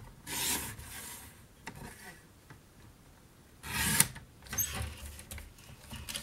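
Stampin' Up sliding paper trimmer cutting cardstock: the blade carriage scrapes along the rail, with a short scrape about half a second in and a louder one that ends in a sharp click about four seconds in as it reaches the top of the rail. Light paper rustling follows as the sheet is handled.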